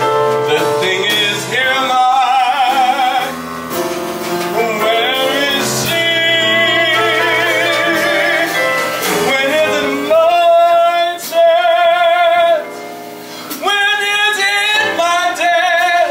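Male vocalist holding long sung notes with wide vibrato, backed by piano and drums.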